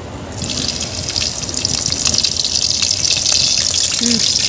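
Chopped green chillies sizzling in hot oil in a kadai: a dense hiss that starts about half a second in, swells over the next second or two, then keeps on steadily.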